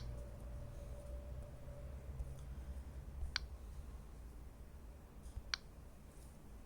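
Three sharp clicks: one right at the start, then single clicks about 3.4 and 5.5 seconds in, over a low steady hum. These are taps on a tablet being worked between alert-sound demonstrations.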